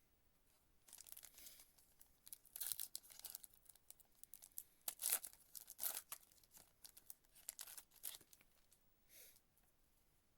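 A foil trading card pack wrapper being torn open and crinkled by hand, in a string of short rips and rustles over several seconds.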